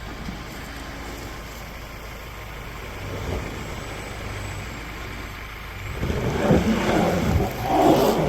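Off-road 4WD vehicle driving, its engine rising about three seconds in, then growing much louder with a noisy rush in the last two seconds.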